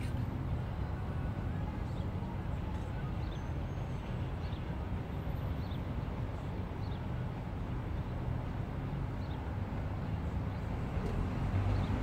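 Car idling while stopped at a traffic light, heard from inside the cabin: a steady low rumble with street noise, and faint short high chirps now and then. It grows a little louder near the end as the car begins to pull away.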